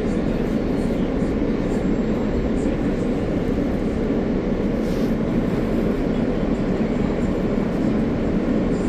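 Steady rumble and hiss inside an R160A New York City subway car, even in level throughout.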